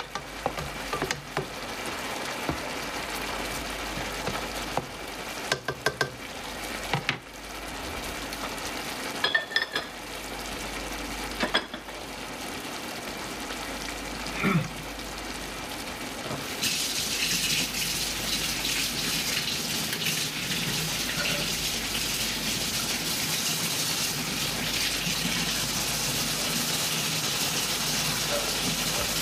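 Chicken and mushrooms simmering in sauce in a large frying pan, a steady sizzle, with a few clinks and knocks of a stirring utensil in the first half. About 17 seconds in, a louder, brighter steady hiss comes in and holds.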